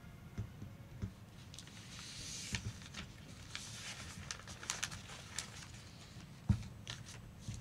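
Quiet hall ambience: scattered soft knocks, clicks and rustling from people in the audience seats over a low steady room hum, with one heavier thump about six and a half seconds in.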